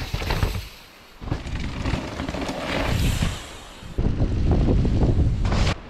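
Downhill mountain bikes riding a rough dirt trail: noise from tyres and bikes over the ground with wind on the microphone, loudest in the second half, and the sound jumping abruptly between passes several times.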